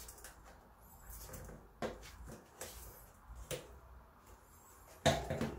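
Plastic tire levers knocking and scraping against a bicycle rim and tire bead as the tire is prised off: a few separate knocks, with a louder one near the end.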